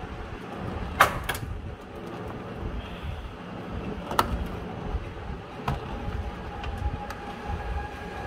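Sharp clicks as a RAM stick is moved to a different motherboard slot and seated, the loudest a quick double click about a second in, with further single clicks later, over a steady low rumble. A faint steady tone comes in about six seconds in.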